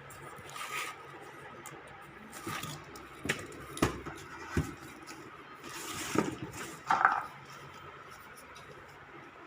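Scattered knocks, clicks and short scrapes of objects being handled, with a brief ringing clink about seven seconds in.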